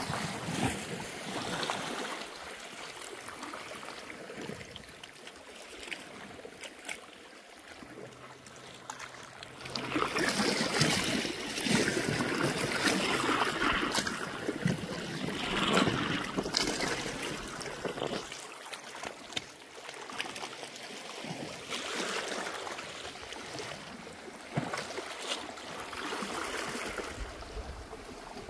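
Small sea waves washing and splashing over the rocks of a rocky shore, with some wind, the wash swelling louder for several seconds in the middle and easing off again.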